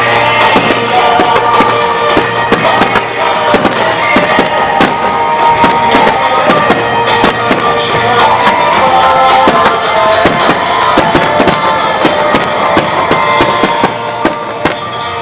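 Starmine fireworks barrage: a dense, rapid run of firework bursts and crackles over music playing with the show. The bursts thin out near the end.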